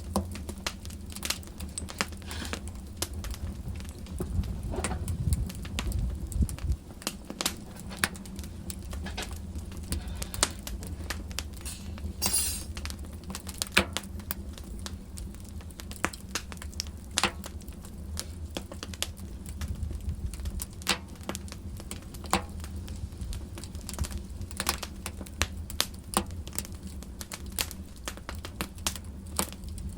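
Wood fire burning in a fireplace: scattered sharp crackles and pops over a low steady rumble of the flames, with a short hiss about twelve seconds in.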